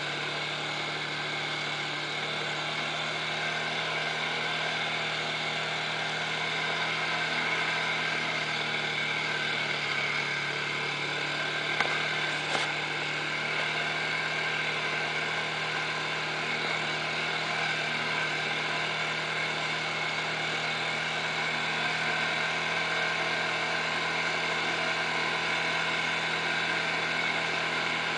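ATV engine running steadily as the quad travels a dirt trail, an even drone that holds one pitch. Two brief knocks come about twelve seconds in.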